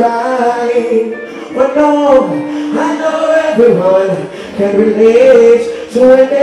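Male singer singing live into a handheld microphone over reggae music on a concert sound system, with phrases that glide and break through the whole stretch.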